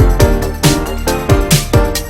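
Background electronic music with a steady, fast kick-drum beat.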